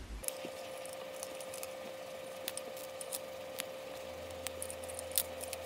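Faint scattered clicks and taps of a small hex key working the screws on a 3D printer's metal base and of a plastic fan guard being handled, the sharpest click about five seconds in. A faint steady hum runs underneath.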